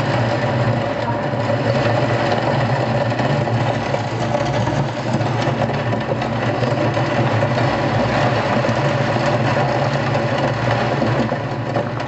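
Heavy rain pouring steadily during a thunderstorm, with a steady low hum underneath.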